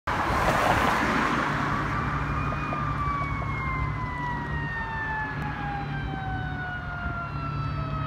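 Fire engine's Federal Q mechanical siren winding down, its wail falling slowly and steadily in pitch as the rotor coasts. A low engine drone runs underneath.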